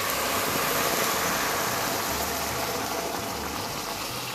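Hot water pouring in a steady stream from a steel pot onto chopped vegetables in a stockpot, a continuous rushing splash that slowly fades toward the end.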